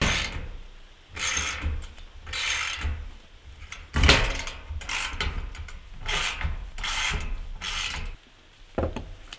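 Hand socket ratchet clicking in repeated back-and-forth strokes, about one and a half a second, as it tightens a nut onto a bolt stud. The ratcheting stops a little over a second before the end, followed by a single short knock.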